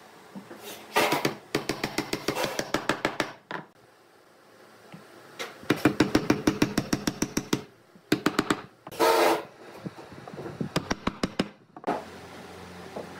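Several bursts of rapid knocking, about eight knocks a second, as tenoned pine chair parts are knocked into their mortises, with one short harsher rasp partway through.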